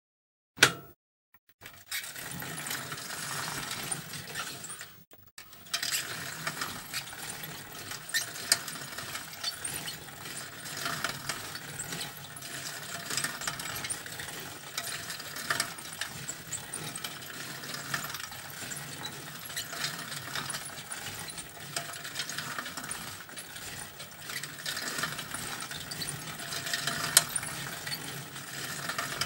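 Bicycle chain and drivetrain recorded close up, ticking and rattling in a dense run of fast clicks while cycling. There is one sharp click about half a second in, and the ticking breaks off briefly near the start and again about five seconds in.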